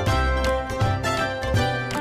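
Background music with plucked notes over a steady bass beat.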